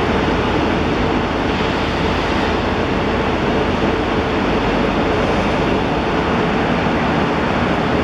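Loud, steady rushing rumble that holds even throughout, with no separate clanks, knocks or horn.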